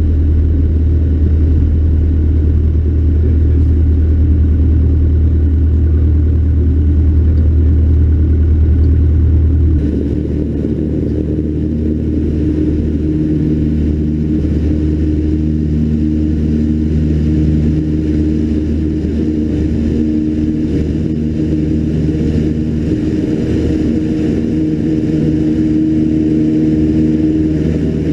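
Cessna 152's four-cylinder Lycoming engine and propeller droning steadily in flight, heard from inside the cabin. About ten seconds in, the low drone drops and gets a little quieter, and a steadier, higher hum carries on, as with a change in engine power.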